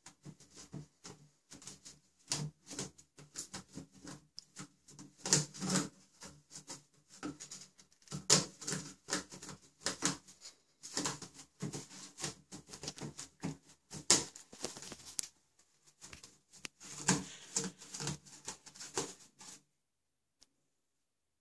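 Toilet paper rustling and crinkling as a cat claws and bats at the roll, pulling sheets off it, in quick irregular scratchy bursts. The sound stops abruptly about two seconds before the end.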